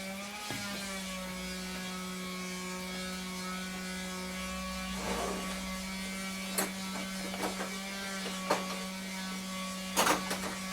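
Steady electrical hum. From about five seconds in come scattered clicks and clinks of tools being rummaged in a toolbox drawer, the loudest a clatter near the end.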